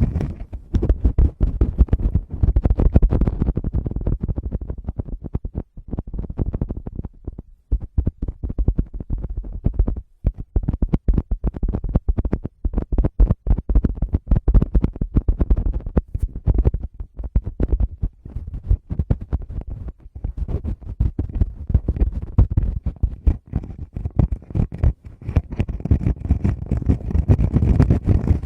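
Fingers tapping and rubbing directly on a Tascam recorder's microphones: a rapid, dense run of muffled thumps and scratchy rubbing, heavy in the low end.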